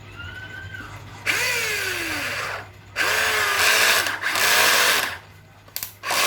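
Electric hand drill with a rewound motor, run in short trigger bursts: a brief faint whir, then three louder runs, each spinning up and winding down in pitch.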